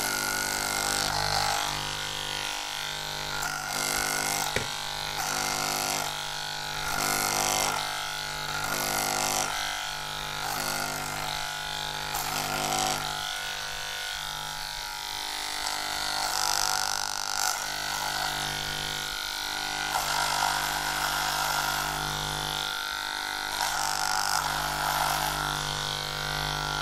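Electric hair clippers buzzing steadily as they shave a head, with a hiss of cut hair that swells and fades every second or two as the blades pass over the scalp.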